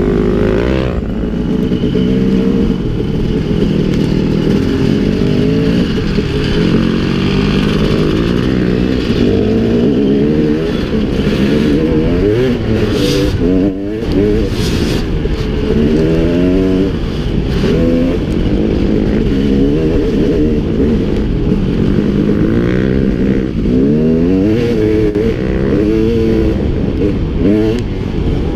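Dirt bike engine heard from the rider's own bike, revving up and down as it accelerates and shifts along a rough trail, with the pitch climbing and dropping several times.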